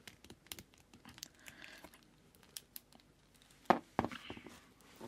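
Fingers handling a plastic Fourth Doctor action figure close to the microphone: small clicks and rustles, with two louder knocks about three and a half seconds in.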